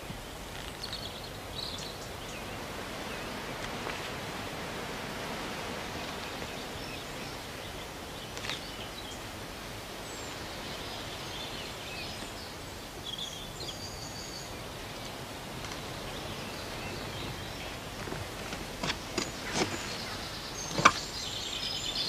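Steady outdoor countryside ambience: an even noisy hiss with faint high bird chirps now and then. A few sharp knocks come near the end, one clearly louder than the rest.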